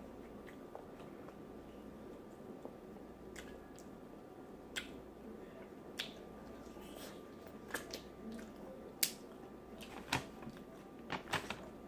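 A person eating seafood boil close to the microphone: chewing with wet lip smacks, and about a dozen sharp smacks and clicks scattered irregularly, several close together near the end.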